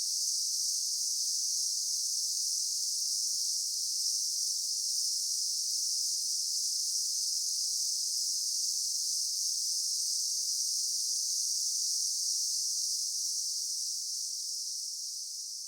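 Daytime insect chorus: a dense, steady high-pitched buzzing drone of many insects, fading out near the end.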